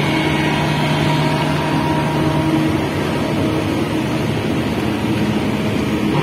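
Steady engine hum and road noise of a moving vehicle, heard from the vehicle itself as it drives along, a continuous drone with no sudden events.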